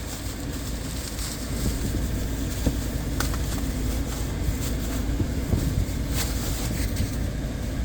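Steady low rumble of a small car idling, heard inside its cabin, with scattered clicks, knocks and rustles of packaging as a handheld car vacuum is pulled out of its box.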